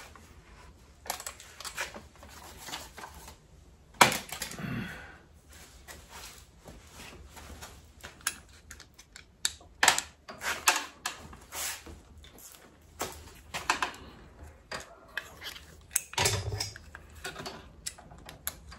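Irregular clicks, taps and knocks of hand tools working at a stuck motorcycle part pressed into a bakelite grommet, as it is forced out. A sharp knock comes about four seconds in.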